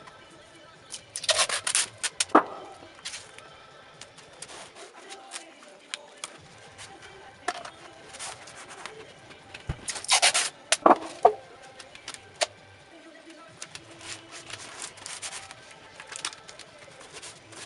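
Adhesive tape pulled off the roll in two loud bursts, about a second in and again about ten seconds in, with scattered rustles and taps of tape being pressed onto a cardboard box in between.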